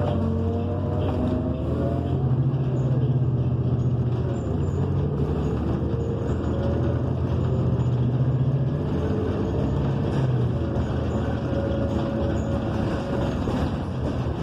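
A 2014 New Flyer XN40 city bus under way, heard from inside the cabin: its Cummins Westport ISL G natural-gas engine and Allison automatic transmission run steadily, with the engine and transmission pitch rising and falling as the bus speeds up and eases off.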